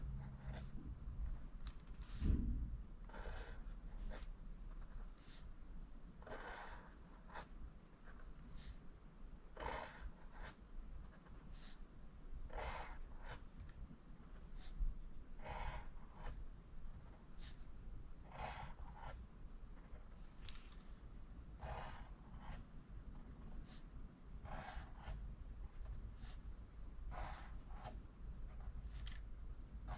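Pencil scratching on paper in short strokes, one after another, as a row of lowercase j letters is written. A low thump about two seconds in.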